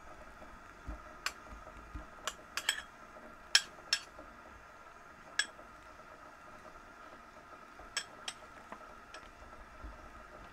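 Metal spoon clinking against a small bowl while eating from it: about a dozen short, sharp clinks at irregular intervals, bunched in the first four seconds and again around eight seconds, the loudest about three and a half seconds in.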